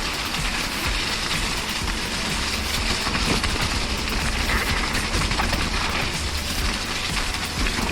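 Mountain bike descending a wet, rocky trail: a steady rushing noise with a rapid run of sharp clicks and knocks from the tyres and bike rattling over rock.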